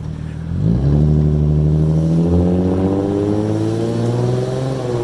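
Infiniti G35's 3.5-litre V6 with an aftermarket exhaust accelerating: the note jumps up about a second in, then climbs steadily under throttle and eases off slightly near the end.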